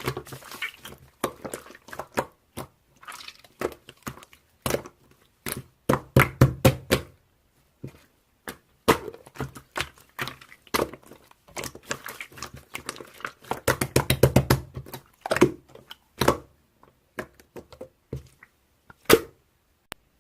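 Slime being pressed and squished by hand, giving an uneven run of sharp clicks and pops. The popping comes thicker about six seconds in and again around fourteen seconds.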